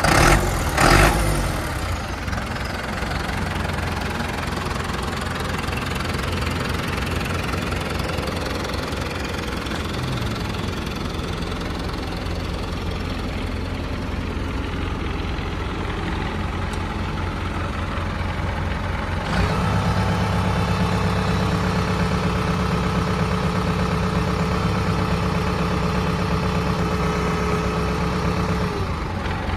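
The diesel engine of a 2003 New Holland TS100 tractor runs steadily at idle. About two-thirds of the way through, the sound gets louder and fuller, and a steady whine joins it.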